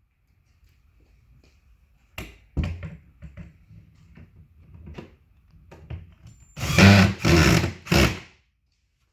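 Wooden cabinet parts and fittings being handled and knocked during assembly, with scattered knocks, then three short, loud, rasping bursts close together near the end.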